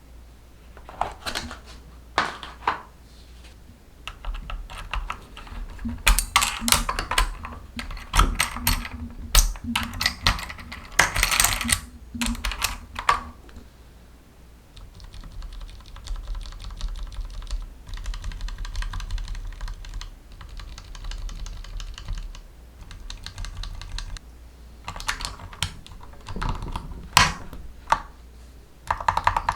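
Typing on a darkFlash GD100 mechanical keyboard with yellow switches: a few single keystrokes at first, then quick runs of loud key clicks, a stretch of lighter, steady typing in the middle, and more strong keystrokes near the end.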